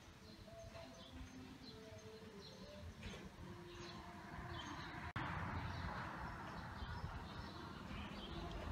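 Small birds chirping in short, scattered calls over a low rumble. About five seconds in the sound drops out for an instant and comes back with a louder hiss under the chirps.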